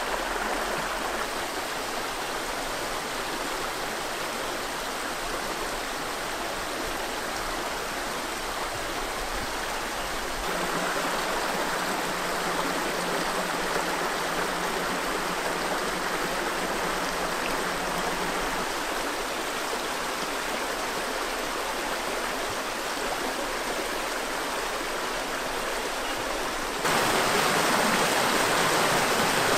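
A small rocky mountain creek running and splashing over mossy stones in little cascades, a steady rush of water. The rush shifts abruptly about ten seconds in and grows louder near the end.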